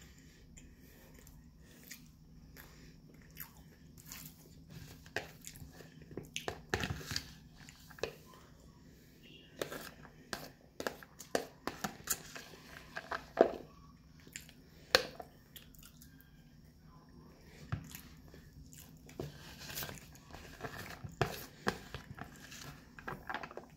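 Close-up eating sounds: a utensil scraping and tapping against a plastic food container, with chewing in between, heard as irregular sharp clicks and taps.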